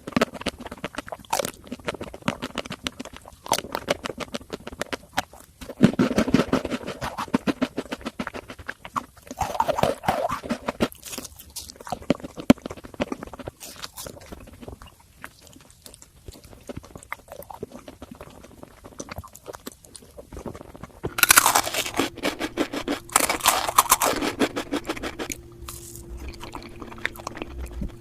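Close-miked eating of sweets: repeated crunchy bites and chewing, with a louder run of crisp crunching about 21 seconds in. A faint steady hum comes in at about the same point.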